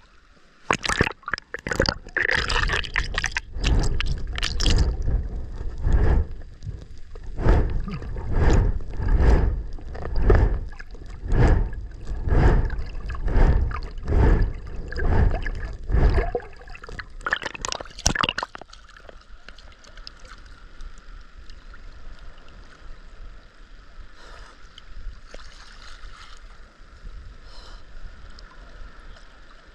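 Ocean water splashing and sloshing against a camera at the surface as a swimmer strokes, in surges of about one a second. After about eighteen seconds it drops to a quieter wash of water with a faint steady whine.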